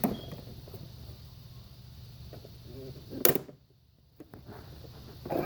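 Handling noises: light clicks and knocks, with one sharper knock about three seconds in, followed by a brief drop to silence.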